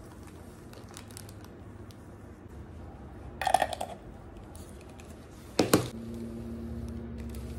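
Small handling sounds of topping up a small glass jar with turmeric: light clicks and rustles, a brief scrape about three and a half seconds in, and a sharp knock just before six seconds. After the knock there is a faint steady hum.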